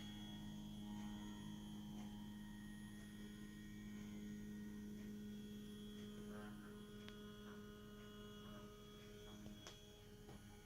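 Mini CNC machine running a program: a steady low hum with faint motor whines higher up that change pitch in steps as the axes move, and a couple of faint clicks.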